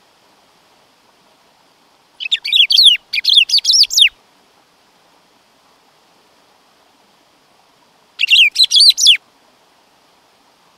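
Black-throated saltator (bico-de-pimenta) singing two phrases of quick, high notes that sweep downward. The first, about two seconds long, begins about two seconds in; the second, about a second long, comes near the end.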